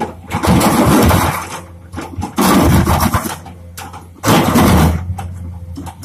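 Komatsu hydraulic excavator breaking up old road asphalt. Its diesel engine runs steadily under three loud bursts, each about a second long, of the steel bucket scraping and crunching through asphalt slabs.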